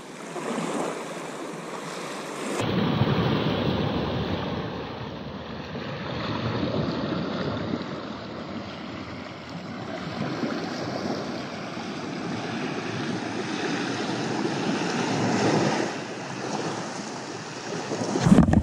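Small waves breaking and washing up a sandy shore, with a steady noisy wash that swells and eases every few seconds.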